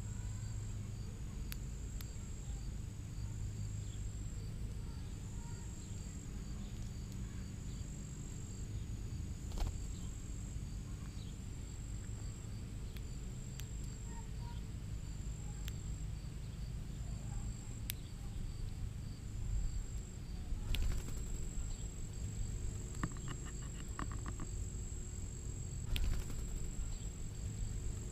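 Outdoor ambience of insects calling steadily in high-pitched pulses over a low rumble. Scattered sharp clicks are heard, and a short run of rapid ticks comes near the end.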